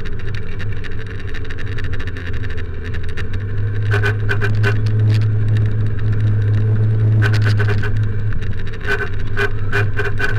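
Motorcycle running at road speed with steady engine hum, and from about four seconds in a horn honked in quick repeated bursts, in three clusters.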